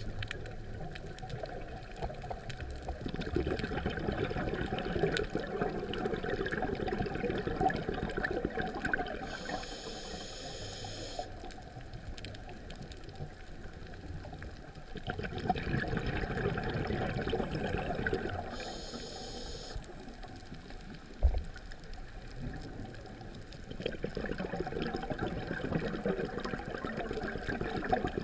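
Scuba breathing heard through an underwater camera housing: long stretches of bubbling from exhaled air rise and fall, broken twice by a short hiss of the regulator on the in-breath. There is a single sharp knock about two-thirds of the way through.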